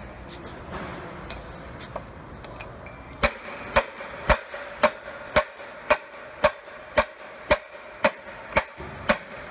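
A tubular bearing driver struck repeatedly against the bearing on an Eaton Fuller heavy-duty transmission shaft, driving the bearing in to seat it: sharp metal-on-metal strikes about two a second, about a dozen, starting about three seconds in, each with a short high ring.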